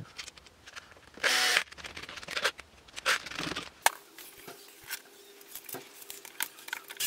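Hand-work sounds on a moped engine crankcase: small metal clicks and taps of parts being handled and fitted, with a short scraping rustle about a second in and another around three seconds, and a sharp click near four seconds.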